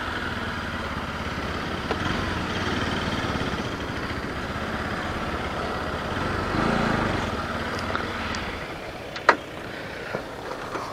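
Motorcycle engine running at low speed as the bike is eased along and brought to a halt, with a brief rise in revs about two-thirds of the way through. The engine sound dies away near the end, followed by a single sharp click.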